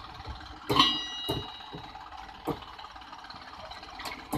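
Engine of a rail-wheeled farm tractor running low, with a few sharp metal clanks from the tractor and its loaded ballast wagon on the track; the loudest clank, about a second in, rings briefly.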